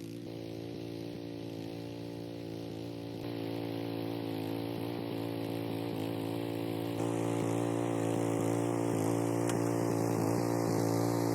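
An engine running steadily at a constant speed with an even droning hum. It grows louder in two steps, a few seconds in and again past the middle.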